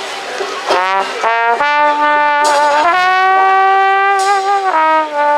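Trombone playing a jazz solo line: quick notes that slide up about a second in, then a long held note that steps down near the end.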